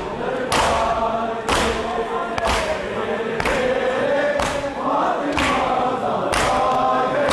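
Men's voices chanting a noha together, with a crowd beating their chests in unison in time with it (matam): one sharp, loud slap about every second.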